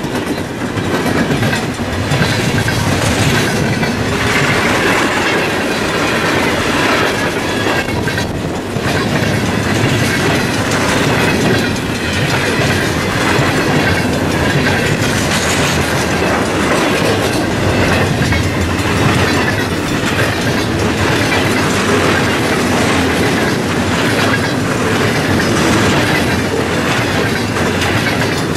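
Freight train rolling past close by, a loud, steady rumble of steel wheels with repeated clicks as they cross the rail joints.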